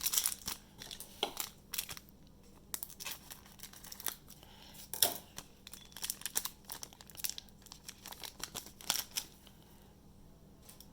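Trading card packs and cards being handled: plastic pack wrapping crinkling and tearing, with cards sliding against each other in short, irregular rustles that die away about nine seconds in.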